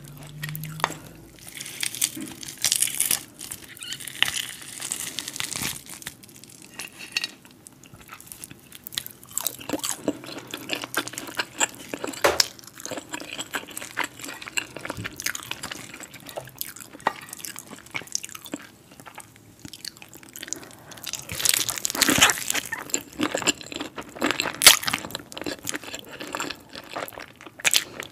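Close-miked eating of crispy breaded fried chicken with thick cheese sauce: crisp crunching bites and chewing, with wet, sticky sounds as pieces are dipped in the sauce. The crunching is loudest near the start and again toward the end.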